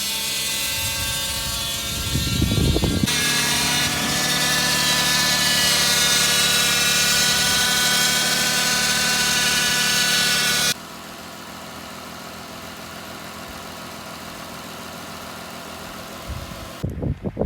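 2002 Lexus ES 300's 3.0-litre V6 engine running with a loud, harsh noise made of many steady tones, the horrible sound that marks a fault in the car. The noise stops suddenly about ten seconds in, leaving a quieter steady running sound, and there is some rustling near the end.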